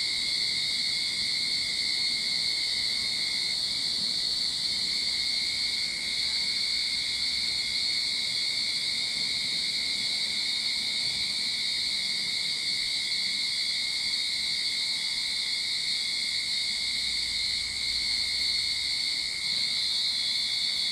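A chorus of cicadas singing, a steady unbroken high-pitched drone that holds level throughout.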